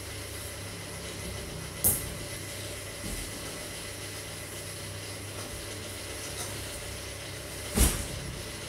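Steady background hiss with a faint low hum, broken twice by a short sharp knock, about two seconds in and again near the end.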